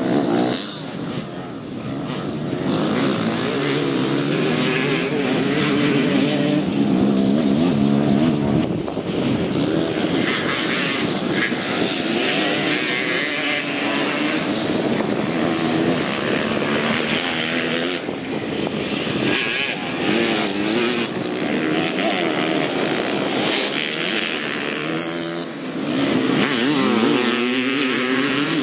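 Several enduro dirt bike engines revving up and down as the bikes ride past on a dirt track, the pitch rising and falling with each throttle change.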